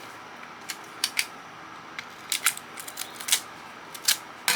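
Irregular sharp clicks and snaps, about a dozen, of a hand tool working at the plastic and metal parts of a CB radio as a plate is worked loose. The loudest snap comes near the end.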